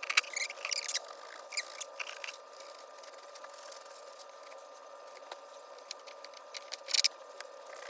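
Kitchen handling sounds: light clicks and scrapes of a knife and utensils, busiest at the start, with a louder scrape about seven seconds in. Under them runs a steady hum from an oven heating up, which has been called noisy.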